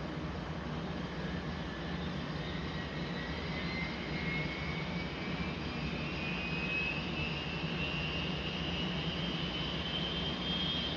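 Model Union Pacific gas-turbine locomotive #18's sound unit playing its turbine whine, which rises slowly and steadily in pitch as it throttles up, over a steady low hum.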